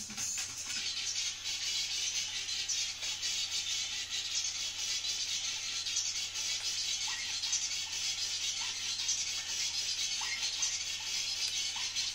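Music playing from a vinyl record on a Technics 1210 turntable through a DJ mixer and amp, heard thin and mostly as rattling percussion, over a steady low hum.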